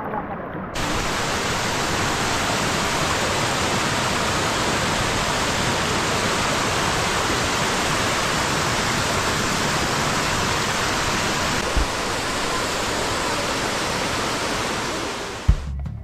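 Waterfall: a steady, loud rush of falling water that cuts in suddenly about a second in and drops away just before the end.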